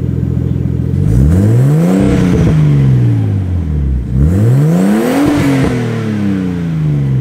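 Nissan Skyline R32's RB20DET turbocharged straight-six idling through a newly fitted ISR turbo-back exhaust, then revved twice about three seconds apart, each rev climbing quickly and falling back slowly to idle.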